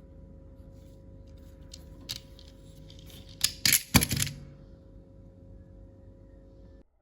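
Hard plastic toy parts clicking and clattering as they are handled: a single click about two seconds in, then a quick run of loud sharp clicks about three and a half seconds in. A steady low hum with a faint held tone runs underneath and cuts off suddenly near the end.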